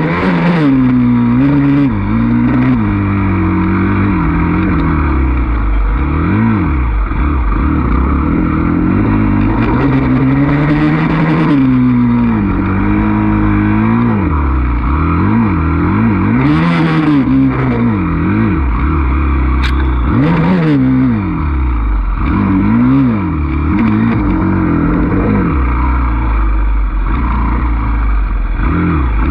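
Dirt bike engine heard from the rider's seat, revving up and falling back over and over as the throttle opens and closes along the trail. A few short hissing bursts come and go over the engine.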